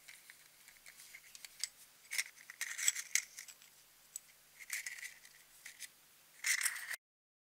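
Small plastic toy capsule, its rolled paper insert and loose plastic figure parts being handled: scattered light clicks and crinkling, loudest about two to three seconds in and again near the end, then the sound cuts off abruptly.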